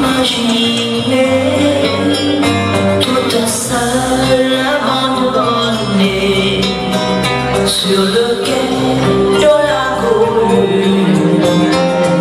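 A woman singing a slow, gently sad ballad into a microphone, with electronic keyboard accompaniment.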